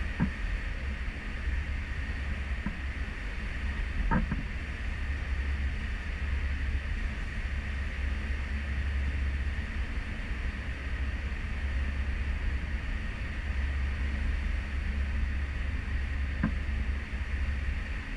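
Steady rush of wind and the wake behind a cruise ship under way at sea, heard from its stern balcony, with a deep wavering rumble of wind on the microphone. A few faint knocks come at the start, about four seconds in and near the end.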